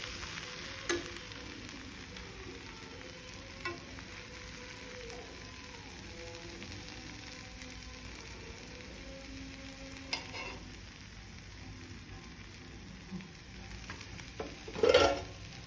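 Food sizzling steadily in a hot pan, with a few light utensil clicks and a louder clatter near the end.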